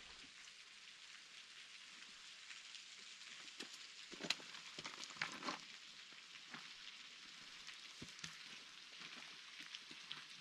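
Footsteps crunching and clicking irregularly on a rocky, gravelly trail, a few louder crunches about four to five seconds in, over a faint steady hiss.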